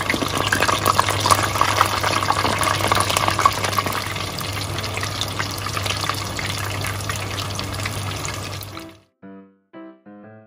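Flour-and-starch-coated chicken pieces deep-frying in a pot of hot oil: a dense sizzle with constant crackling pops. Near the end the sizzle fades out and piano music begins.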